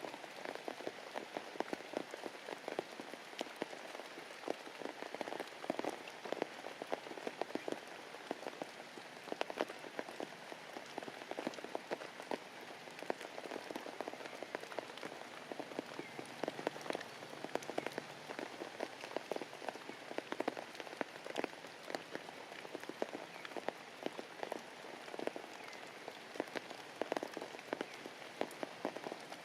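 Heavy rain falling: a steady, dense patter of drops hitting surfaces.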